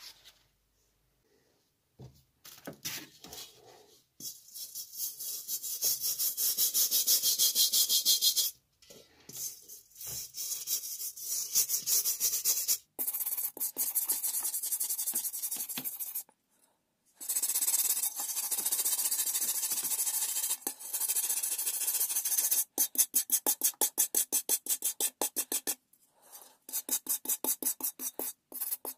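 An orange sanding sponge scrubbed quickly back and forth over the painted steel shell of an M40/M42 helmet, wearing the fresh paint to age it: a rapid, even, scratchy rasp of several strokes a second, stopping briefly a few times.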